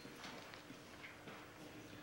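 Faint footsteps on a hard floor, a few soft scattered steps, over a low steady hum.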